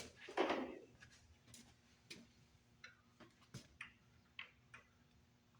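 Scattered light clicks and taps of hand tools on metal engine parts, irregularly spaced, with a brief louder scrape about half a second in.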